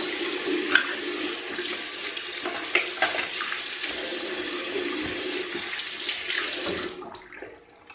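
Water running from a tap over a sink while plastic parts are rinsed, with a few light knocks of the parts. The water stops about seven seconds in.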